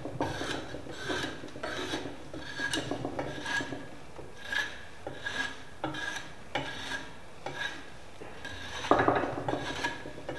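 Steel hand file scraping across the end grain of a wooden hammer handle as it is shaped, in a series of separate strokes about one and a half a second, with one louder, longer stroke near the end.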